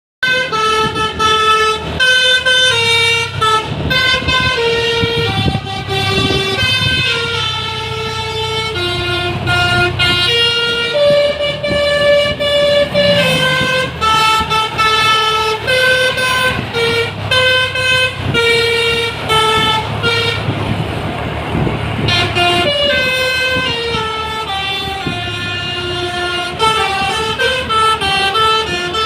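Bus basuri telolet horn playing a melody: a run of held notes stepping up and down about twice a second, over the low hum of the bus's engine. Around 21 s in the notes break off briefly into a noisier stretch, then the tune resumes.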